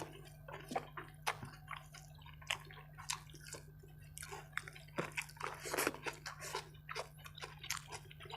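Close-up eating by hand: rice and curry being mixed and chewed, a faint string of irregular wet smacks, squelches and clicks. A low steady hum runs underneath.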